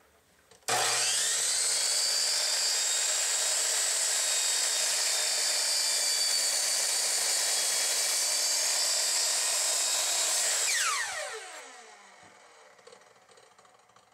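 Electric miter saw with a fine-tooth carbide finishing blade starting up suddenly and running at full speed, a steady high whine, while the blade is lowered through a wooden rifle stock. Near the end it is switched off and the whine falls in pitch as the blade spins down.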